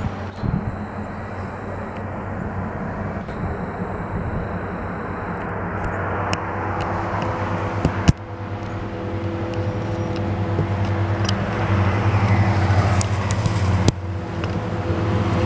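Diesel locomotive engine running with a steady low drone as the train creeps along, growing gradually louder.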